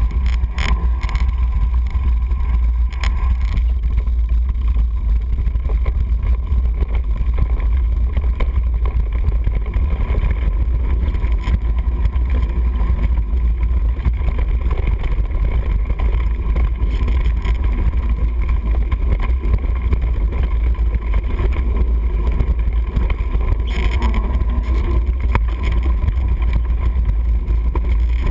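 Steady wind rumble buffeting a GoPro action camera's microphone on a fast mountain-bike descent over a dirt trail, with scattered knocks and rattles from the bike over bumps.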